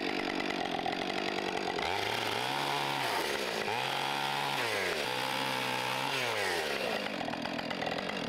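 Gas chainsaw running at full throttle, cutting through a wooden board. From about two seconds in, the engine's pitch rises and falls three times, and the saw drops away right at the end.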